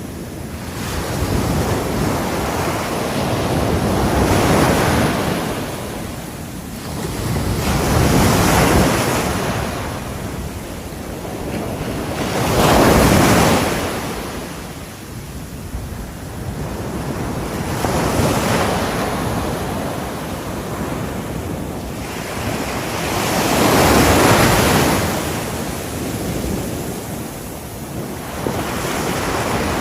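Ocean surf on a seashore: waves breaking and washing in, swelling and ebbing every four to five seconds.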